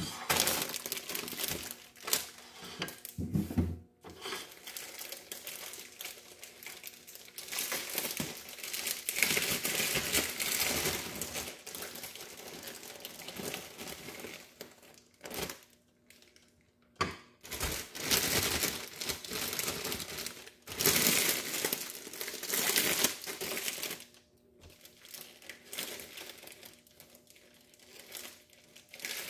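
Plastic bread bag crinkling and rustling in irregular bursts as it is opened and slices of bread are pulled out.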